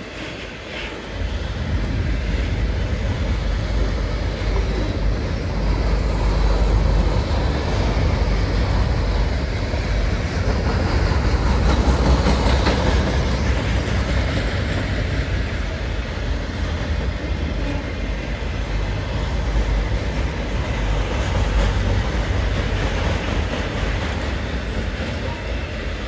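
Freight train of autorack cars rolling past at speed: a steady rumble and clatter of steel wheels on the rails, which grows louder about a second in and holds.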